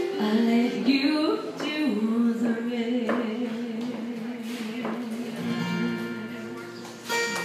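Live country song on two acoustic guitars with a woman singing, holding one long wavering note through the middle, and the guitars strumming fuller again near the end.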